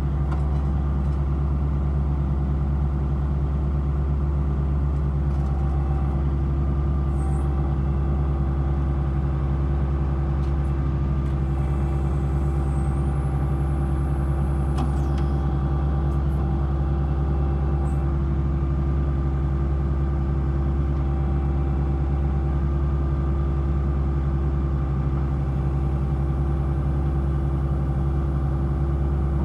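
Kubota L3560 tractor's diesel engine running steadily at a constant speed, with no revving.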